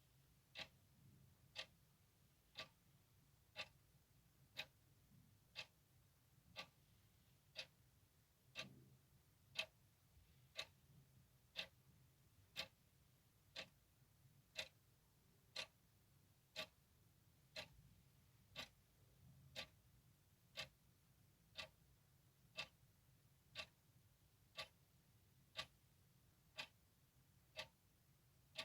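A clock ticking steadily, one sharp, quiet tick about every second.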